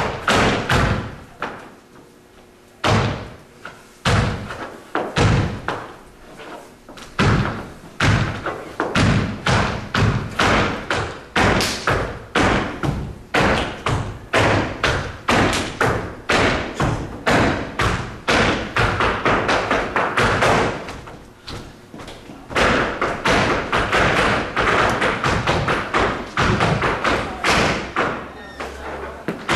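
Rapid, rhythmic stamping and tapping of flamenco shoes on a wooden floor, in quick runs of sharp strikes with a few brief pauses.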